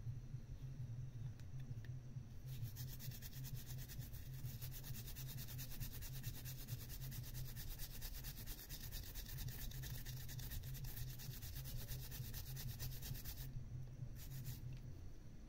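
Cotton swab scrubbing the solder side of a circuit board in fast, even back-and-forth strokes, a scratchy rubbing that starts a couple of seconds in and stops shortly before the end, with a brief last scrub after it. A steady low hum runs underneath.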